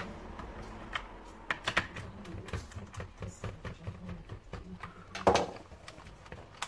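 Irregular light clicks and taps of plastic parts and a small screwdriver as an AEG cordless stick vacuum's floor nozzle is being taken apart, with one louder clack about five seconds in.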